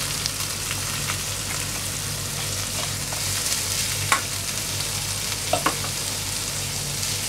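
Chopped onions sizzling in hot oil in a nonstick kadhai as they are stirred with a silicone spatula. A few sharp clicks stand out: one about four seconds in and two close together about five and a half seconds in.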